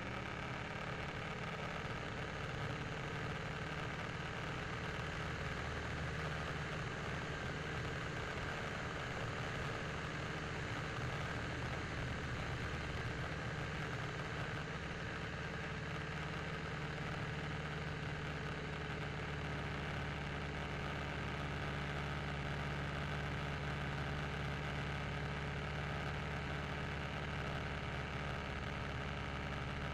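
Piston engine of an open-cockpit biplane running at a steady pitch in flight, with the rush of the slipstream over the aircraft-mounted camera.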